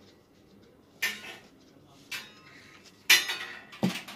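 Metal tubes of a baby cot frame knocking and clinking together during assembly: four sharp metallic clanks about a second apart, some with a short ring, the one about three seconds in the loudest.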